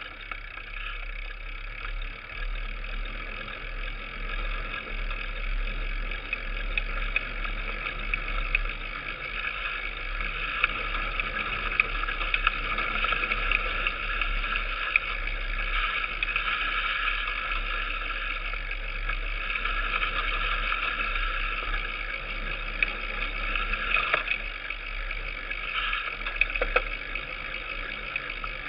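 Mountain bike rolling over a bumpy forest dirt trail, heard from a camera mounted at the handlebars: a steady rattling, rushing ride noise with a low rumble, and a few sharp knocks near the end.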